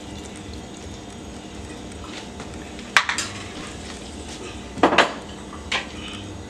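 Dishes clattering: a ceramic sauce bowl being handled and set down, with two sharp clatters about two seconds apart and a smaller knock near the end.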